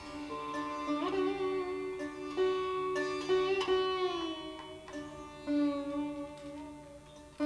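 Sitar played alone in Hindustani classical style: a few slow plucked notes, some bent in gliding slides along the string, ringing over the hum of its drone and sympathetic strings. This is the unaccompanied, unmetred opening of a raga, the alap; no tabla is heard.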